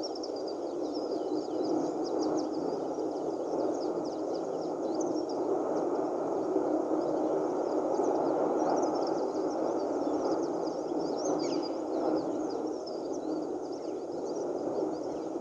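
Steady rushing noise with many quick, high chirps of small birds scattered over it.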